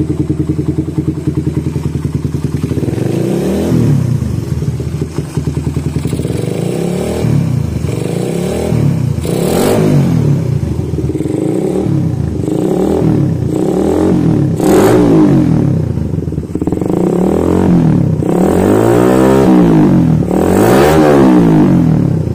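Suzuki Satria FU 150's single-cylinder four-stroke engine, upgraded with a PE28 carburettor and BRT CDI and breathing through a freshly fitted aftermarket Lonerider exhaust, idles steadily and is then blipped on the throttle again and again. The revs rise and fall with each blip, and the longest, highest revs come near the end.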